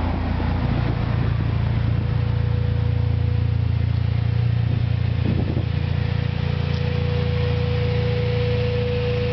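A car engine idling steadily, a low even rumble with a thin steady whine that comes up from about halfway through.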